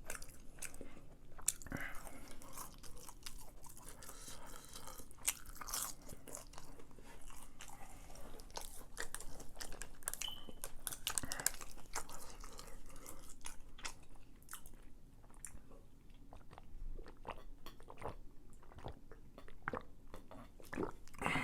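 Close-up chewing and crunching of crispy fried chicken: an irregular run of small crunches and crackles as the breading is bitten and chewed.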